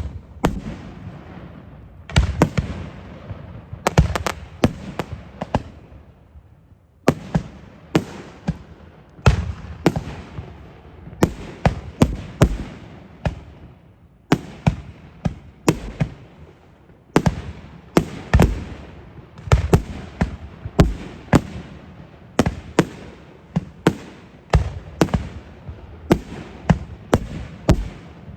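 Aerial fireworks display: a rapid series of shell bursts, booms and sharp reports, several a second at times, each followed by a trailing crackle and echo.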